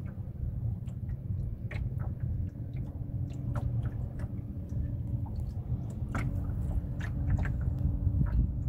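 Water lapping and slapping against a small boat's hull as it moves, a stream of short irregular splashes over a steady low rumble.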